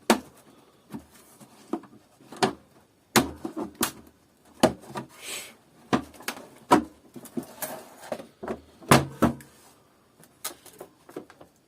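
Irregular clicks and knocks of the plastic housing of a Kärcher DS5500 vacuum cleaner being handled and pried apart, with a brief scrape about five seconds in.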